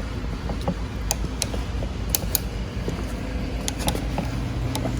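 Scattered sharp metallic clicks and taps, about seven in all, as Allen keys and a handlebar switch are handled, over a steady low hum.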